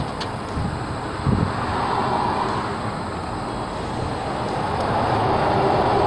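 Steady rushing road-traffic noise, swelling slightly near the end.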